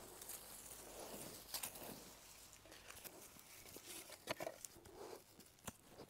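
Hands scraping and crumbling through dry, loose garden soil while digging out potatoes: faint irregular rustling and scuffing, with a few short sharp ticks of clods or stones knocking.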